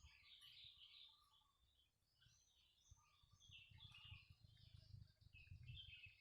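Small birds chirping and twittering, several calls overlapping, faint. A low rumble runs under them in the second half.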